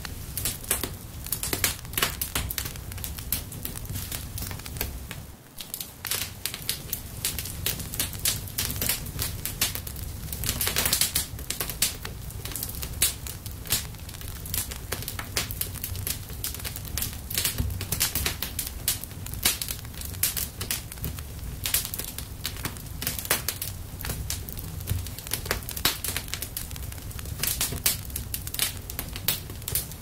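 Wood fire crackling in a fireplace: irregular sharp pops and snaps over a low steady rumble, with a brief lull about five seconds in.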